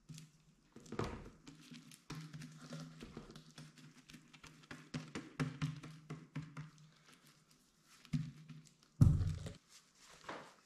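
Gloved hands rubbing and handling a large plastic jar on a tabletop, with scattered light knocks and a heavier thump about nine seconds in as the jar is put down.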